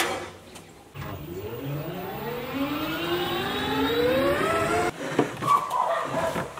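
Small cargo tricycle's engine pulling away, its pitch rising steadily as it speeds up. It cuts off about five seconds in, followed by a few light knocks.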